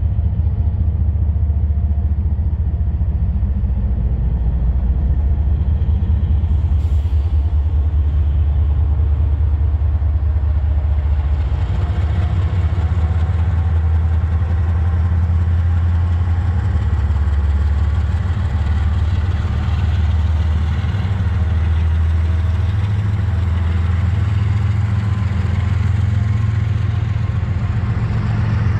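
Diesel-electric freight locomotive idling close by with a deep, steady engine hum, while a double-stack container train moves past behind it. From about twelve seconds in, the rumble of the moving train builds and a faint rising whine joins it.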